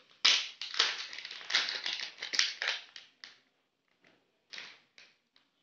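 Plastic packaging crinkling and crackling as hands handle and open a small pouch: a dense run of crackles for about three seconds, then a few scattered ones.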